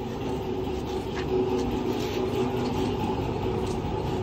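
Royal Enfield Bullet's single-cylinder engine running steadily, rising a little in loudness partway through.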